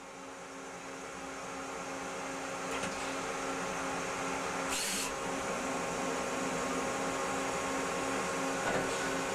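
Citizen A20VII CNC Swiss-type lathe running as it machines a brass part: a steady machine hum with a pulsing low tone that grows slowly louder. Short hissing bursts come about 3 seconds and 5 seconds in.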